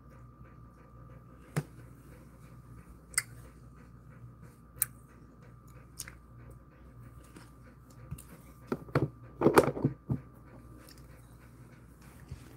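Jindo mix dog panting softly with his mouth open, in a fast even rhythm, over a steady hum. A few sharp clicks sound in the first six seconds, and a short louder burst of noise comes about nine seconds in.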